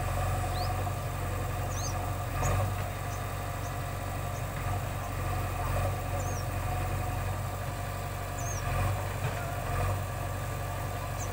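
JCB backhoe loader's diesel engine running steadily with a low hum, with a few small swells in level.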